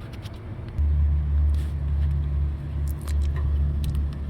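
A deep, steady vehicle-engine rumble starts about a second in, with a few light clicks over it.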